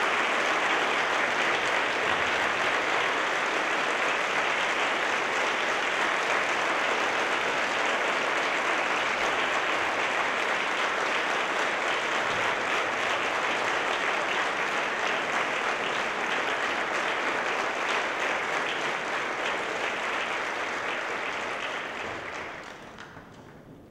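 Concert hall audience applauding steadily, the applause dying away over the last two seconds.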